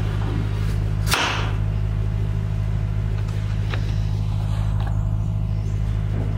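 A kitchen knife cutting through a butternut squash and striking the wooden cutting board: one sharp chop about a second in, then a couple of faint knocks as the squash is handled. A steady low hum runs underneath.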